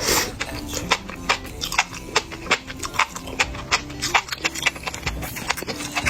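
Close-miked chewing of enoki mushrooms from a spicy stir-fry pot: a quick run of crisp, squeaky-crunchy clicks, about two or three a second, over soft background music.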